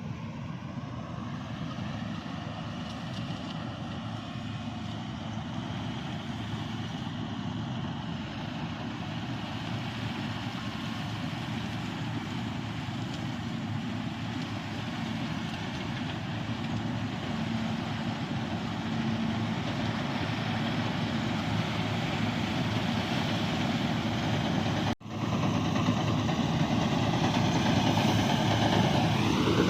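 Engine of heavy farm machinery running steadily during wheat harvesting, growing gradually louder. It breaks off for an instant about 25 seconds in, and a rising tone comes in just before the end.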